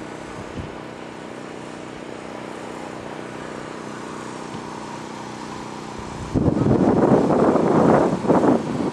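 A steady motor drone with several held tones. About six seconds in, a much louder, uneven rushing of wind on the microphone cuts in over it.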